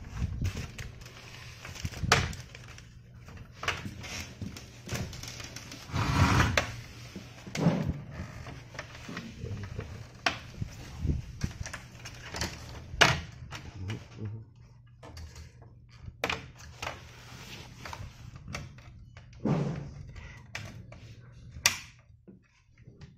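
Irregular hard plastic clicks, taps and knocks from handling a chrome Mercedes star emblem and a plastic diamond-pattern grille as the emblem is pressed and fitted into place, with a brief scraping rustle about six seconds in. A low steady hum runs underneath.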